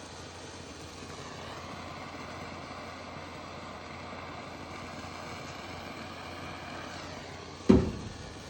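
Small propane torch burning with a steady hiss while melting plastic for a weld, with one sudden loud knock near the end.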